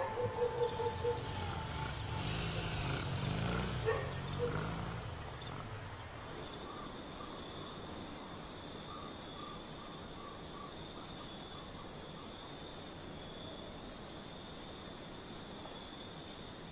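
Night insects, crickets, trilling steadily. The high continuous trill becomes the main sound from about six seconds in, after fading low sounds and a few brief tones at the start.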